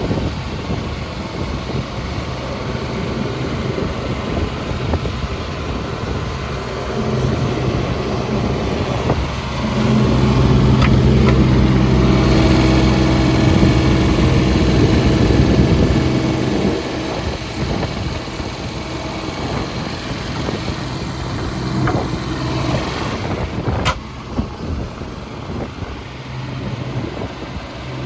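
JCB 16C-1 mini excavator's diesel engine running steadily. It gets louder for about six seconds near the middle, then settles back. A single sharp click comes about three-quarters of the way through.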